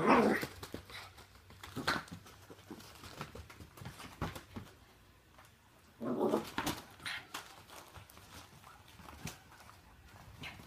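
A chihuahua growls and snarls as it shakes and drags a stuffed chicken toy, with two louder outbursts, one at the start and one about six seconds in. Between them come quieter scuffles of paws and toy on the carpet.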